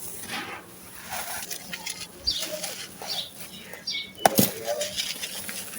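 Dry, gritty sand cement crumbling and crunching, irregular crisp crackles and grainy rustling, with one sharp loud snap about four seconds in.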